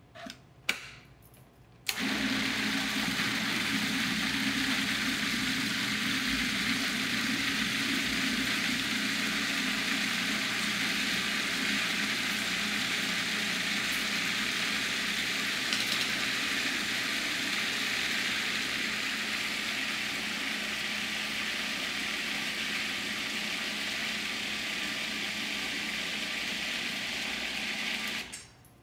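Small electric food processor running steadily, puréeing smoked eggplant with yogurt. Its motor starts suddenly about two seconds in and cuts off just before the end, after a few light clicks of the lid and bowl.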